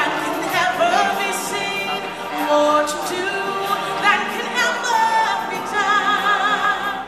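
Live stage singing through microphones: solo voices with a wavering vibrato over a choir, with music and beats behind.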